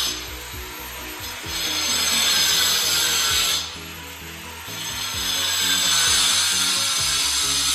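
Handheld electric stone cutter grinding a cut into the stone floor, with a high, gritty whine. It bites in hard, eases off about a quarter-second in, bites again from about 1.5 s to 3.5 s, eases off, then builds up to full cut again from about 5 s.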